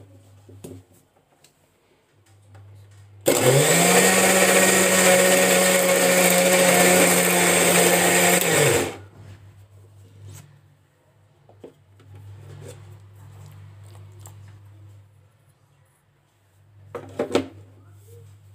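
Electric mixer grinder (mixie) running once for about five seconds, grinding boiled carrots, onion, garlic and ginger into a fine paste; its motor whines up to speed, runs steadily and winds down when switched off. Near the end there is a brief knock.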